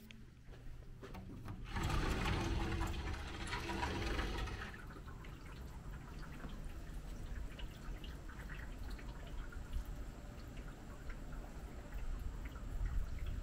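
A rush of noise for about three seconds as the sliding balcony door is opened, then outdoor night ambience: a steady low rumble of wind on the microphone, scattered small ticks and a faint steady high tone.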